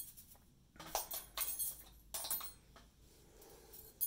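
Light metal clinks and taps as heel forks are handled and fitted onto a circular sock machine, in a few short clusters.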